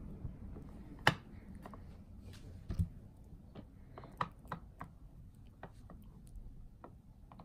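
A metal spoon and a spatula scraping and tapping against a metal mixing bowl and a glass jar as thick whipped cream is scooped and packed, giving irregular clicks and knocks, the sharpest about a second in.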